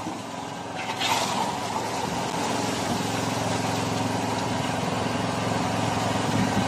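Motorized outrigger boat's engine running steadily, getting louder about a second in, with sea water rushing and splashing along the hull.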